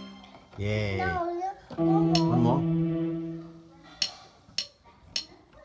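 A young child's voice sings a few sliding notes, then an electronic keyboard sounds held notes with a little more of her voice over them. Near the end come a few short sharp clicks about half a second apart.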